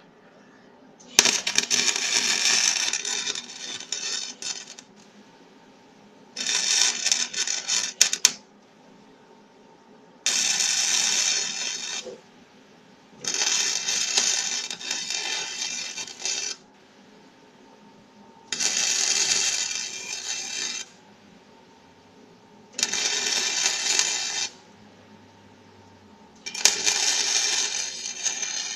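Electric arc welder crackling in seven separate passes of about two to four seconds each, with short pauses between, as a break in a quad's (ATV's) frame is welded up.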